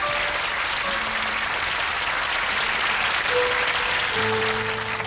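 Audience applauding, with the song's first instrument notes coming in about four seconds in.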